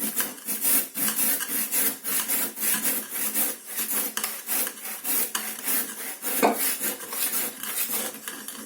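Hand wood saw cutting back and forth through a block of frozen food, a quick, even run of strokes.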